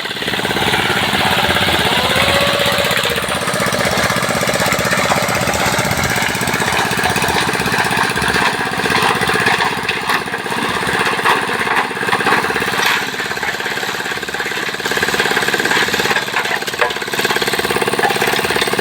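Road construction machinery running steadily: an engine with a fast, even pounding rhythm.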